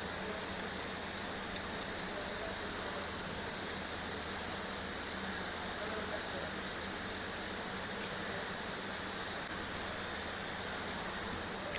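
Steady background hiss with a low mains-like hum, and one small sharp click about eight seconds in.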